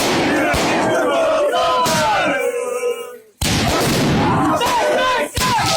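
Crowd of football fans shouting a chant together. The voices die away about three seconds in, then start again abruptly and loud.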